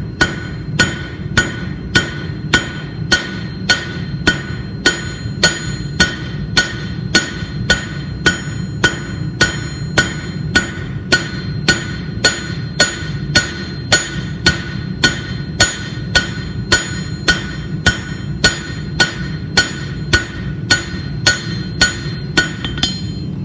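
Hand hammer striking a hot mild steel bar on an anvil in a steady rhythm, a little under two blows a second, each blow with a short metallic ring: drawing out a flat taper by hitting the same spot over and over. The blows stop just before the end.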